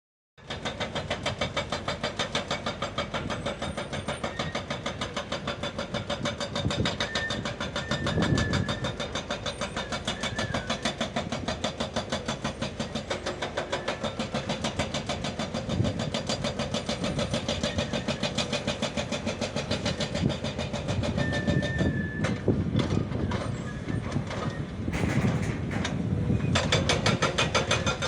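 Excavator's diesel engine running steadily with a fast, even chugging pulse, starting suddenly just after the beginning. A noisier stretch comes about 25 seconds in.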